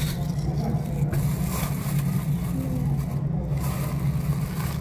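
Steady low hum of a running motor vehicle engine, with road noise over it.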